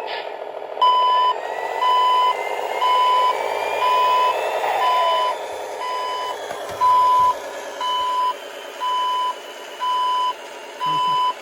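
An RC model vehicle's sound module playing a reversing alarm through its small speaker: an even beep about once a second, over a steady motor running sound.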